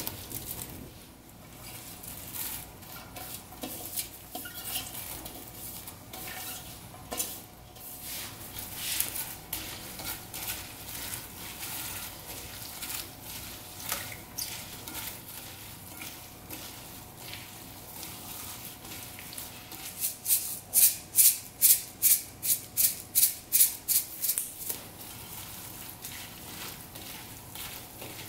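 A gloved hand tossing cubed cucumber, chives, onion and chili seasoning in a glass bowl: wet squishing and rustling of the vegetables as they are mixed into the kimchi paste. About two-thirds of the way in comes a quick run of about a dozen louder squelching strokes, roughly three a second.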